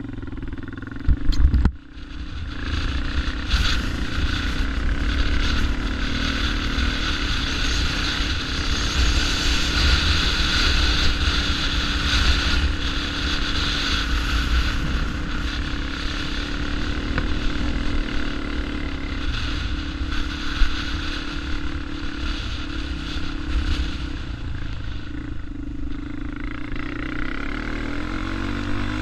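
Sport ATV engine running under the rider as the quad rides over sand dunes, heard from the rider's helmet with wind rush over the microphone. The throttle rises and falls throughout, and a few loud knocks come about a second in.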